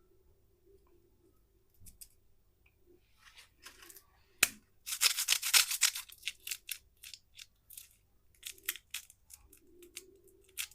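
Candy packaging being handled and opened: a wrapper crinkling and tearing. A sharp click comes about halfway in, then about a second of dense crackling, then scattered short crackles and clicks.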